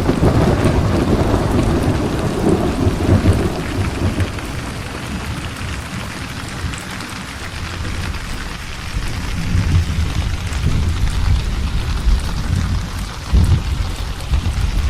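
Steady rain falling with rolling thunder: a long low rumble fades away over the first few seconds, and more thunder rumbles in again in the second half, with a sharper clap near the end.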